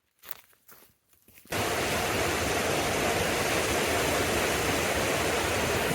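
A few faint ticks, then about a second and a half in a loud, steady rushing noise cuts in suddenly and holds even, with no pitch to it.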